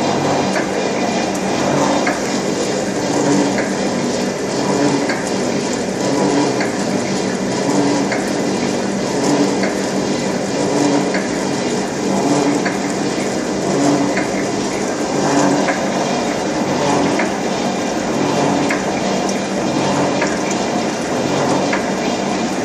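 Gear shaping machine running a cutting test: a steady mechanical noise from the stroking cutter, with a swell that comes back about every second and a half.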